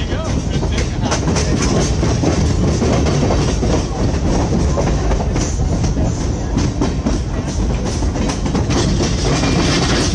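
Skunk Train passenger cars running along the track: a steady rumble with many sharp clacks and rattles as the wheels run over the rail joints.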